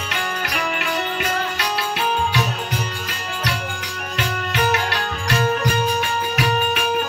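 Bhajan music: a harmonium holds steady notes over a hand drum beating about two strokes a second, with small brass manjira cymbals clashing on the beat.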